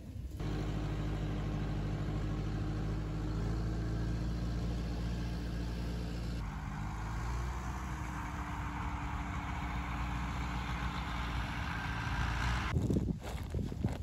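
Tractor's diesel engine running steadily, its pitch rising slightly and settling back about seven seconds in. It breaks off abruptly shortly before the end, giving way to a few knocks.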